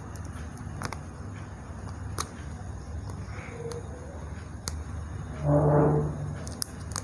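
Faint scattered clicks of fingers picking at the plastic wrap on a smartphone, over a low steady room hum. About five and a half seconds in comes a brief low hum of a man's voice, the loudest sound here.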